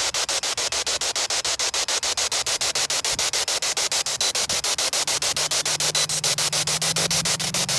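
Spirit box sweeping through radio stations: a steady hiss of static, cut by short gaps about eight times a second as it steps from station to station, with a faint low tone creeping in about halfway through.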